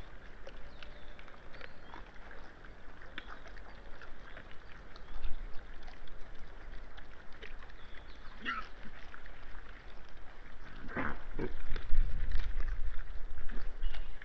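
Wild boar and piglets feeding, with many small crunching clicks of chewing and rooting. A short rising high call comes about two-thirds through, then two louder grunts, and a low rumble underlies the last couple of seconds.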